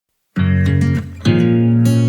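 Background music starting about a third of a second in: two strummed guitar chords, about a second apart, opening a pop song.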